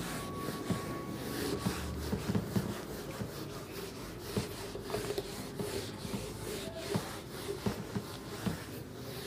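Whiteboard being wiped clean with an eraser: a run of quick back-and-forth rubbing strokes across the board.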